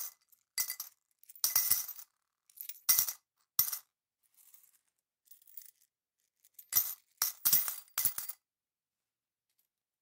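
Coins dropped one or a few at a time into a small pot, each drop a sharp metallic clink and rattle against the other coins. The drops come in irregular bursts with short gaps: sparse and fainter around the middle, then a quick run of several drops about seven to eight seconds in.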